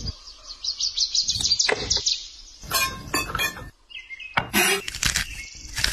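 Chef's knife knocking and scraping on a wooden cutting board in a few short strokes while herbs are scraped together and a raw steak is cut. A bird chirps rapidly and repeatedly over the first two seconds.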